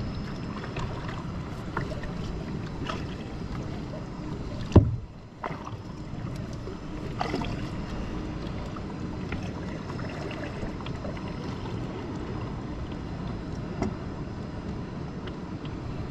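Kayak being paddled on the water: paddle strokes splashing and dripping over a steady hiss, with one sharp knock about five seconds in.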